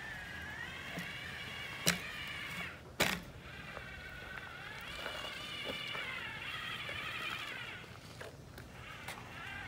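Electric drive motors of a remote-controlled tracked inspection crawler whining, the pitch shifting as it speeds up, slows and turns, dropping out briefly near the end. Two sharp knocks about a second apart stand out as the loudest sounds as the tracks go over a wooden plank onto concrete.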